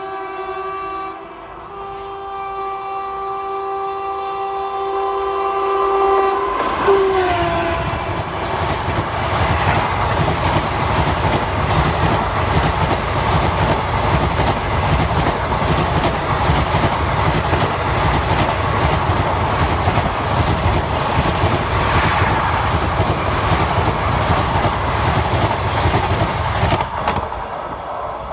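WAP4 electric locomotive's horn sounding, with a short break about a second in, then dropping in pitch as the locomotive passes about seven seconds in. The express train then runs past with a steady loud rumble of coaches on the rails that eases near the end.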